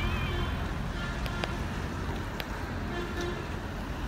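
Heavy fire truck engines rumbling steadily as a convoy passes, with a few short sharp knocks about a second and two seconds in.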